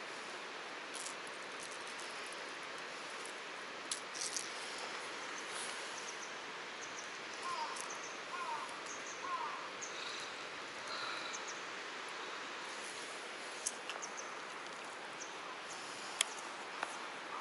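Steady outdoor background hiss, with a few short, faint bird-like chirps about halfway through and a couple of sharp clicks near the end.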